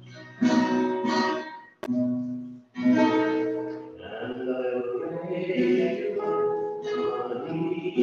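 Classical guitar played: chords struck and left to ring, with brief pauses between them, running into a more flowing passage about halfway through.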